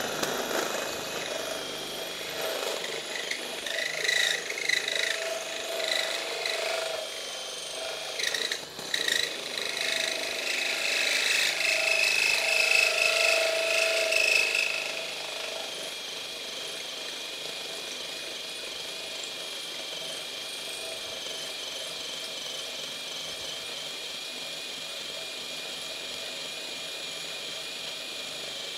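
Ryobi HP hammer drill driving a 1-inch bimetal hole saw through steel tube, the motor whining under load with a rough, uneven grinding of the teeth cutting metal. About halfway through, the cutting noise falls away and leaves a steadier, quieter whine of the drill.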